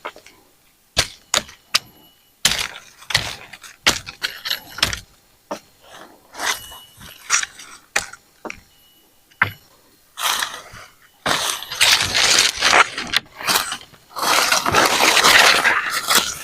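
Repeated sharp cracks and knocks, then two longer bursts of crackling rustle about ten and fourteen seconds in: building materials being handled and snapped while a roof is put on a forest hut.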